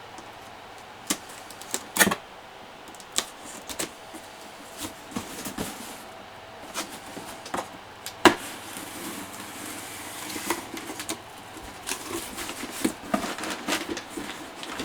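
A cardboard model-kit box and its packaging being handled and opened: scattered knocks, taps and rustles, with two sharper knocks about two and eight seconds in and a busier run of handling near the end.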